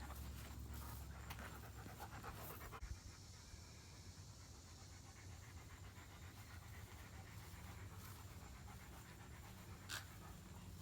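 A dog panting quickly for the first few seconds, then a faint steady hiss with a single click near the end.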